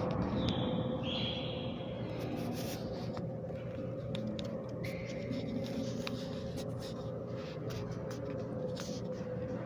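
Building room tone: a steady low hum with a constant pitched drone, scattered light clicks and taps, and two brief high whistle-like tones, one near the start and one about halfway through.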